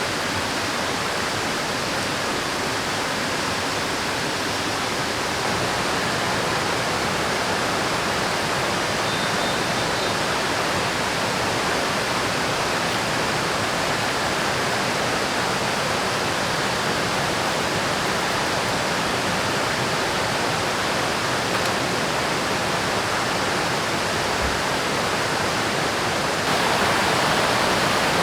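River water rushing steadily, getting a little louder about five seconds in and again near the end.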